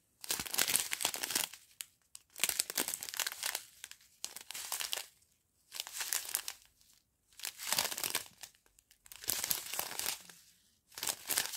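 Small clear plastic zip bags of round diamond-painting drills crinkling as they are handled, in short bursts about once a second with brief silent gaps between.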